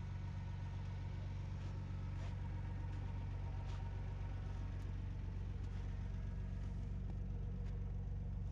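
Ford F-150 pickup's engine idling steadily, with a few faint light clicks over it.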